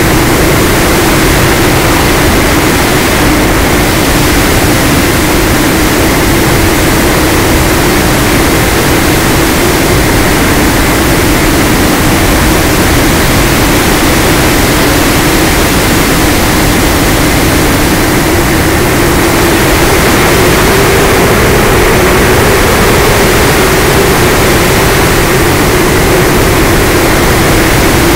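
Electric-powered FPV aircraft in steady cruise: motor and propeller running with wind noise and a heavy, constant hiss, heard through the onboard camera's microphone over the analog video link. A steady low hum sits under the hiss throughout.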